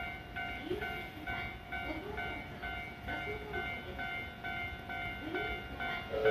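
A 383 series limited express electric train standing at a station platform: a steady electric hum with short electronic tones repeating about three times a second.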